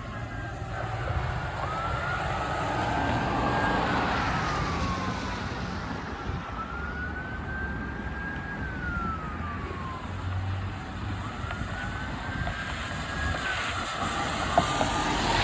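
Fire truck siren wailing, its pitch climbing, holding and falling back in slow cycles about every five seconds, over traffic and engine noise. There is a short sharp knock near the end.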